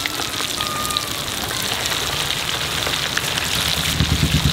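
Marinated quail pieces deep-frying in a kadai of hot oil: a steady, crackling sizzle. A few low thumps come near the end.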